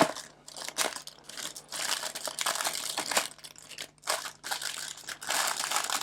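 Packaging being opened by hand: irregular crinkling and rustling with some tearing, starting with a sharp click.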